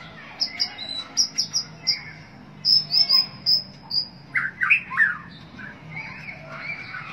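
White-rumped shama (murai batu) singing: a fast run of short, high, clear whistled notes for the first four seconds, then a few louder, lower notes about four and a half seconds in.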